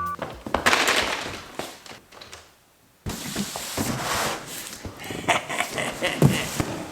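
Irregular rustling and clattering with sharp knocks, as of things being handled and set down, broken by a short near-silent gap a little under halfway through.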